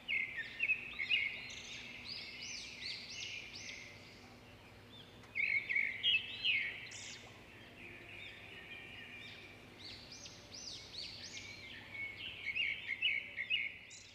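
Small birds chirping: quick runs of short, rising-and-falling notes that come in several spells, loudest near the start, about halfway through and near the end, over a faint steady hum.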